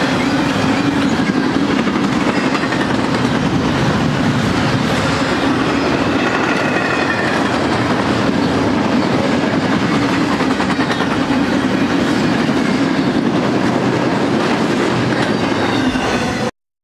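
Double-stack intermodal container train rolling past: a steady rumble of steel well-car wheels on rail with faint high squeals now and then. The sound cuts off abruptly near the end.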